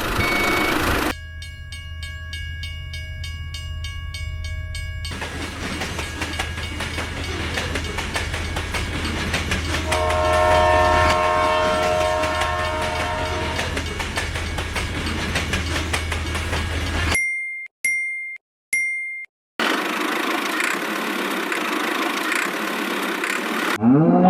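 Train running with a steady rumble, sounding its horn for about three seconds around the middle. It opens with a pulsing electronic-sounding tone and is later cut by three short high beeps.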